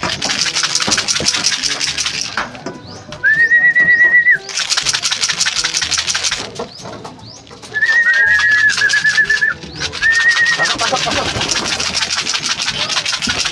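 A can of pigeon feed shaken in about four long spells of fast rattling, between which come several short held whistles, all to call a racing pigeon into the loft.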